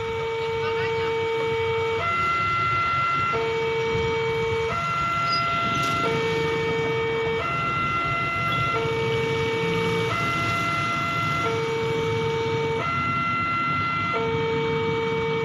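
Railway level-crossing warning alarm sounding a two-tone electronic signal that switches back and forth between a higher and a lower pitch about every second and a half, warning of an approaching train as the barrier comes down. Low road-traffic rumble from passing motorcycles runs under it.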